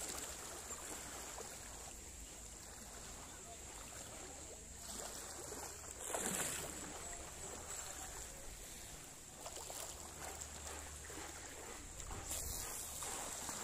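Wind on the microphone over small waves lapping on the sea, with a louder rush about six seconds in.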